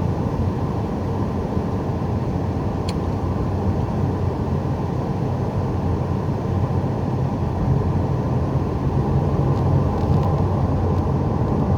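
Steady road and engine noise heard inside a moving car, with one faint short click about three seconds in.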